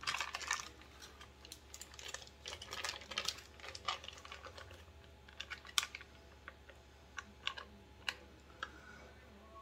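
Foil wrapper of a block of cream cheese crinkling as it is peeled back by hand, in short irregular crackles and clicks.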